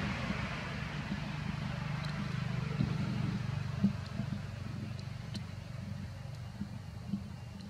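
Low, steady engine rumble, like a motor vehicle running, slowly fading.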